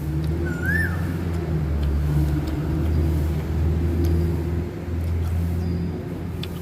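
A motor vehicle's engine running close by: a steady low rumble with a hum in it. About half a second in there is one short high chirp.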